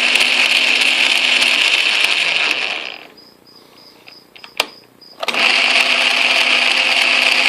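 Atlas QC42 lathe's motor and gear train running, a steady mechanical whir and gear noise, being tested after the tumbler gear lash was reset. About three seconds in it stops, a single click sounds in the pause, and about two seconds later it starts up again at the same level.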